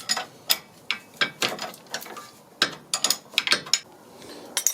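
Ratchet wrench clicking in short, irregular runs as the stabilizer link nut is turned off.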